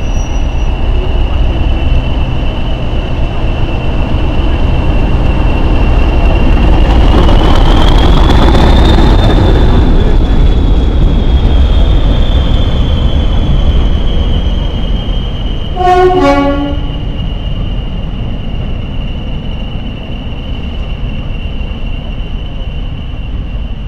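British Rail Class 40 diesel locomotive running light engine. Its English Electric 16-cylinder engine runs under a steady high turbocharger whistle, which rises in pitch as it powers up about seven seconds in and slowly eases back down. A short horn blast comes about sixteen seconds in.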